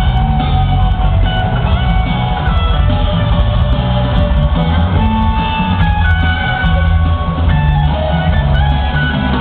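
A rock band playing live, with electric guitar over bass and drums, heard from far back in the audience of an open-air amphitheatre.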